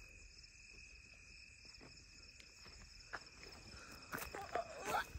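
Crickets chirring steadily at a high pitch, with faint footsteps on dry, stubbly ground. A short burst of louder noises comes a little before the end.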